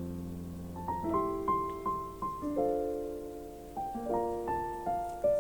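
Soft background piano music: single notes and chords, each struck and left to fade, with a few repeated higher notes in the middle.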